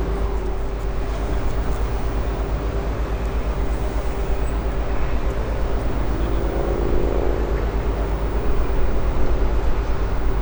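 Steady low rumble and drone of a river cruise ship's engines heard on board, with a constant hum and a few extra tones rising about six seconds in.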